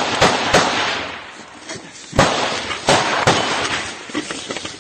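Scattered small-arms gunfire: about three sharp shots in quick succession at the start, a brief lull, then three more single shots from about two seconds in.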